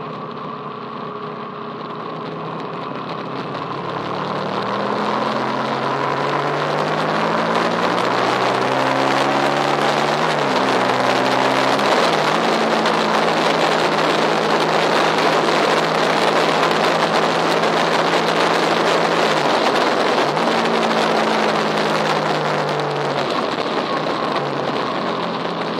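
Engine of a vehicle on a race circuit, revving up through the gears with sharp pitch drops at each shift. It grows louder over the first several seconds, holds, then eases off near the end as it passes.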